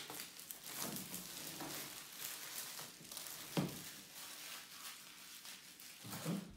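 Thin plastic shrink-wrap film crinkling and crackling as it is peeled off a box and crumpled in the hands, with a single knock about three and a half seconds in.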